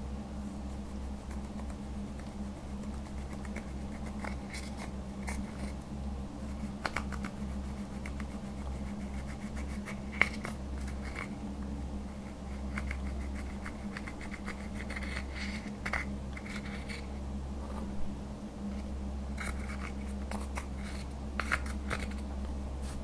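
Pressed eyeshadow being crushed and scraped out of its plastic palette pans with a plastic stick: irregular scratching and crumbling with sharp clicks of the stick against the pans, a few louder ones, over a steady low hum.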